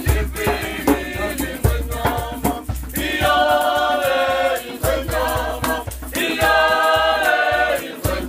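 Traditional African group singing by a troupe of dancers, with rattles keeping a steady beat. The voices hold long notes twice, once in the middle and once near the end.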